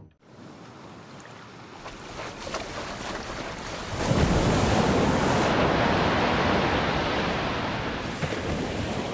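Ocean surf: rushing, splashing water that builds over the first few seconds, then a breaking wave that turns loud about four seconds in and slowly eases off.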